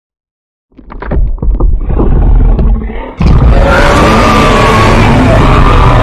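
Designed creature vocalization layered from animal recordings. After a brief silence comes a rapid run of short pulses lasting about two seconds. About three seconds in, a loud, sustained roar begins and carries on.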